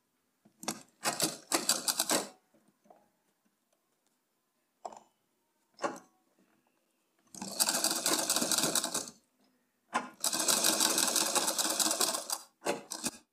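Straight-stitch sewing machine stitching a piping strip onto net fabric in separate runs: two short bursts early, two longer runs of about two seconds each in the second half, and a brief burst near the end, with a few light clicks in the pauses.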